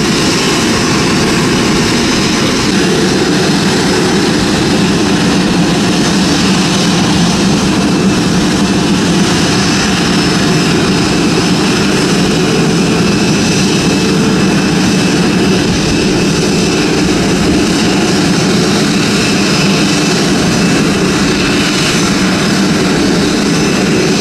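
Jet noise from an Airbus A330-900neo airliner during pushback: a steady, loud rumble with a faint high whine over it, unchanging throughout.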